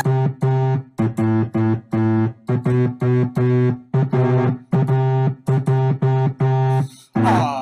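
Background music: short, repeated keyboard chords played in a choppy rhythm with brief gaps between them.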